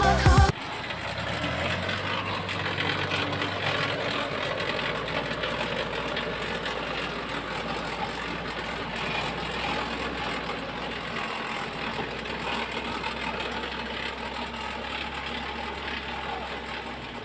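Diesel engine of a Jeep CJ idling steadily.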